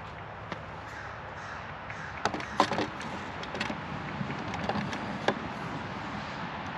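A crow cawing several times: a quick run of calls about two and a half seconds in, then single calls later.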